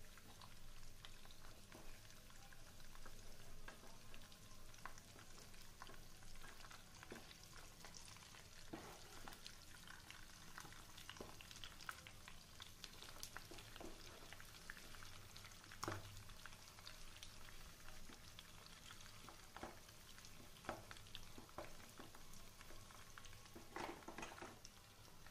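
Mutton curry frying faintly in a pan, with a spoon stirring and scraping against the pan in scattered clicks and knocks.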